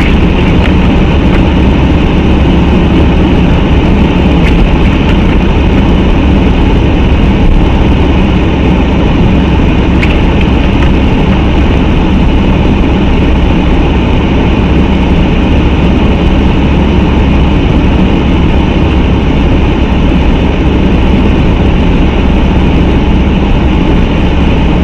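Steady engine drone and tyre and road noise of a car driving on a snowy road, picked up by a dashcam inside the cabin, with a heavy low rumble throughout.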